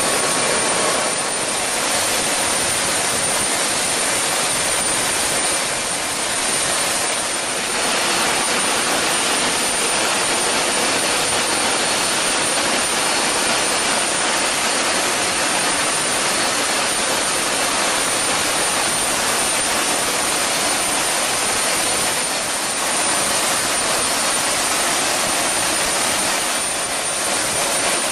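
Large turbofan jet engine turning, a steady loud rushing hiss with a thin high-pitched whine held above it.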